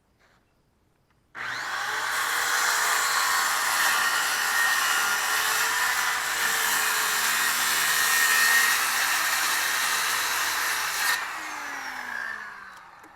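Power cutting tool biting into the pickup's sheet-metal body to trim clearance for the tires. It starts suddenly about a second in and runs steadily for about ten seconds. It cuts off near the end and spins down with a falling whine.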